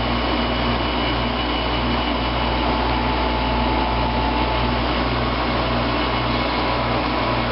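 1995 Fedders window air conditioner running on high cool, its fan blowing with the compressor on: a steady whir over a constant low hum, with a faint high tone.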